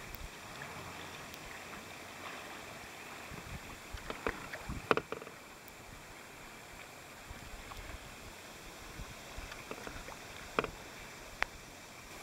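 River water lapping and kayak paddles splashing, with a cluster of sharp knocks about four to five seconds in and two more single knocks near the end.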